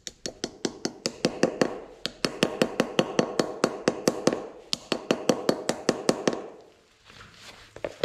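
Ball-peen hammer tapping a part back into a tractor's front wheel hub: quick, even metal taps, about six a second, that stop a little over six seconds in.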